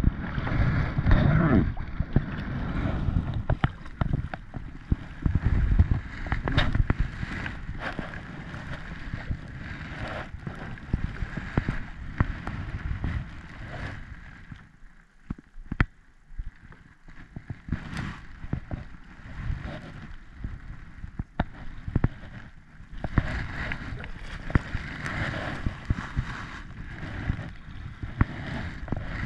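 Kayak paddle strokes dipping and splashing in moving river water, with wind buffeting the microphone; it goes quieter for a couple of seconds about halfway through.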